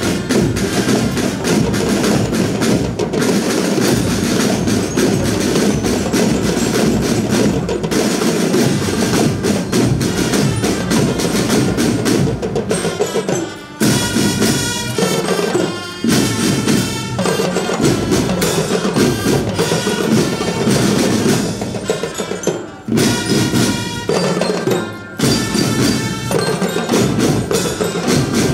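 Marching drum band playing: snare and bass drums beat a dense, loud rhythm. From about halfway through, a pitched melody plays over the drums, and the drumming stops briefly several times.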